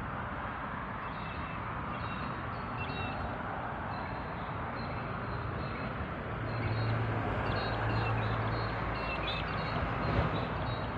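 Waterside outdoor ambience: a steady rushing background with small birds chirping in short repeated calls, and a low engine hum that comes in about two-thirds of the way through.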